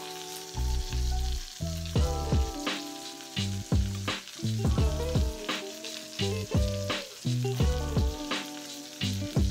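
Background music with a steady beat: sustained chords over a bass line, with a hit about every three-quarters of a second.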